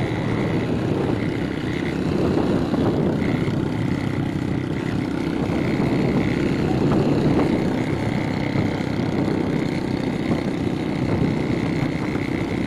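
Small motorcycle engines running steadily at riding speed, with wind and road noise.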